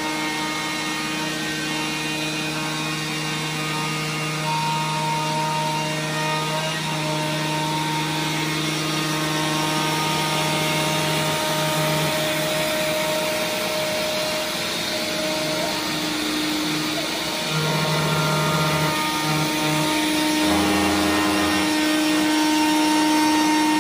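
Self-built CNC router cutting a groove in a wood-fibre board: the DeWalt router spindle running steadily with cutting noise, joined by several steady tones that shift in pitch now and then as the machine moves.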